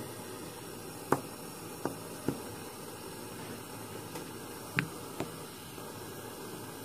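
Several sharp clicks and knocks as gypsum dental models with soldered orthodontic appliances are handled and set down on a ceramic soldering pad, over a steady low hiss.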